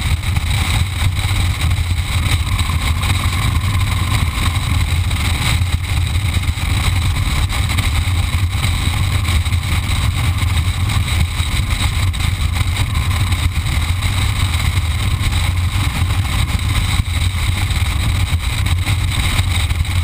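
Motorcycle engine running steadily at cruising speed, heard from a camera mounted on the bike, a constant low engine note under a steady rush of wind noise.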